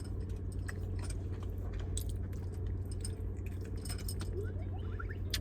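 A person chewing barbecue ribs close to the microphone, with many small scattered mouth clicks, over a steady low hum from the car's running engine.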